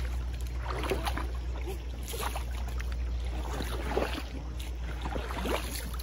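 River water sloshing and splashing around the legs of men wading and working a fishing net in the shallows, over a steady low rumble.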